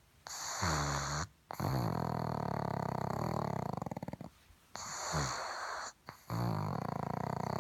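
A pug snoring: long, rattling snores one after another, each lasting one to a few seconds, with short quiet gaps between breaths.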